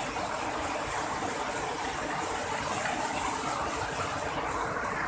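Steady rushing noise with a low rumble.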